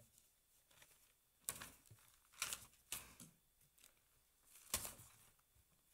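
Papers and pages being handled on a pulpit lectern: several short rustles about a second apart, otherwise near silence.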